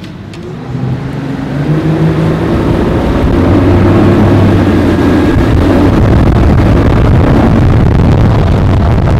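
Twin Suzuki outboard motors accelerating: the engine sound builds and rises in pitch over the first two or three seconds, then holds steady and loud at cruising speed.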